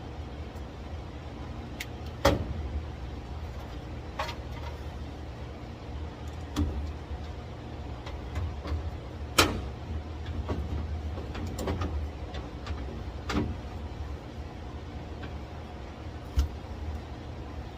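Scattered sharp clicks and knocks of parts being handled and fitted, about six over the stretch, the loudest about halfway, over a steady low hum.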